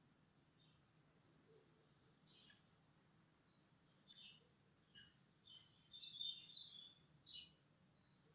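Faint birdsong: small birds chirping in short, scattered calls and quick whistled glides, getting busier in the second half.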